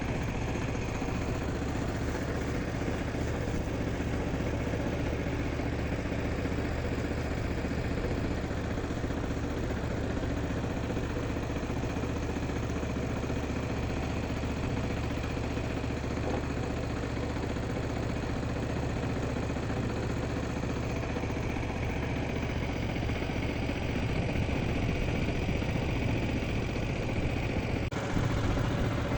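An engine running steadily at idle, with an even low drone that grows a little louder near the end.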